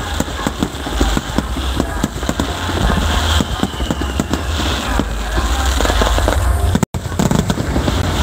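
Aerial fireworks shells bursting in rapid succession: a dense run of bangs and crackles over a heavy low rumble. The sound cuts out completely for a moment about seven seconds in.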